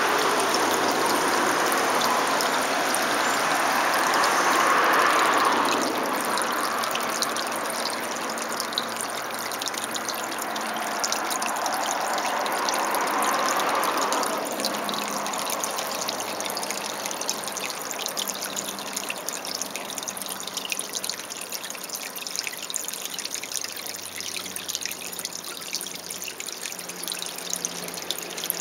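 Shallow stream water trickling and flowing steadily, with fine splashy ticks. The rush is fuller at first and gets lighter from about fourteen seconds in.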